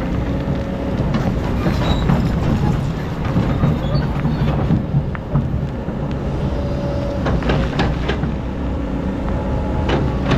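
Excavator's diesel engine running steadily, with scattered metallic clanks and knocks over the rumble.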